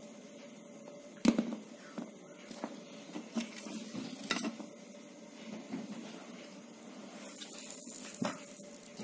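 Soldering iron tip tapping and scraping against wires and a switch terminal while soldering with flux paste, in irregular clicks and knocks, the loudest about a second in. A light sizzle of the flux and a faint steady hum run underneath.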